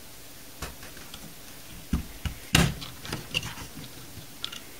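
Small clicks and taps of a precision flat-blade screwdriver prying at the rubber plug on the hub of a plastic computer case fan, to get at its dry sleeve bearing. There are about half a dozen separate clicks, the sharpest a little past halfway.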